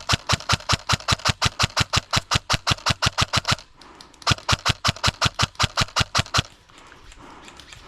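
Airsoft replica firing on full auto, about nine shots a second: a long burst of about three and a half seconds, a short pause, then a second burst of about two seconds.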